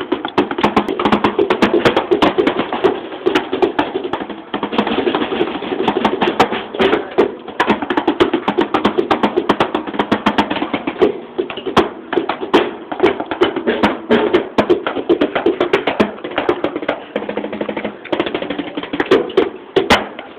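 Drumsticks playing fast beats on an electronic drum kit's pads and cymbal pads: a dense, rapid stream of dull taps and clacks. The kit's own drum sounds go to the drummer's headphones, so the strikes on the pads are what is heard.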